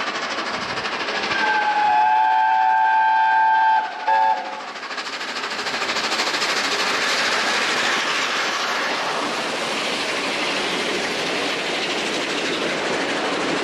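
Peppercorn A1 Pacific steam locomotive 60163 Tornado sounding its whistle: one long steady blast of about two and a half seconds, then a short toot just after. Its coaches then run past close by with a steady rush of wheels on rail.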